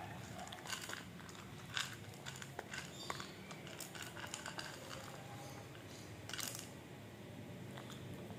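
A small dog chewing crunchy food, with irregular crunches every second or two.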